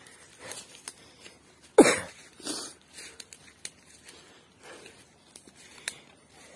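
Footsteps crunching and rustling through dry leaf litter and twigs on a forest floor, in an uneven rhythm of steps. One much louder crunch comes about two seconds in.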